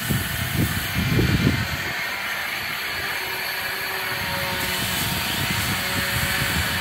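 Steady whirring hiss of power equipment running during hull work, with a few faint steady tones in it. Low rumbling bursts come in the first second and a half.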